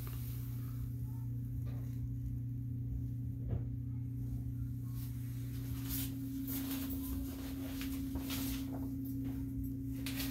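Steady low hum of a 20-year-old, 80%-efficiency single-stage furnace running, with faint rustles and light taps over it.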